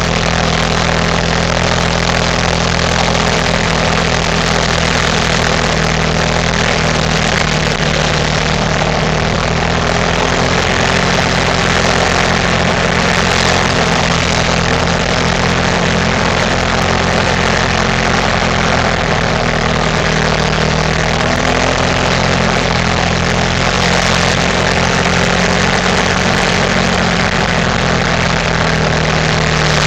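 ATV engine running at a steady, nearly constant speed, with a noisy rush of wind and movement over it.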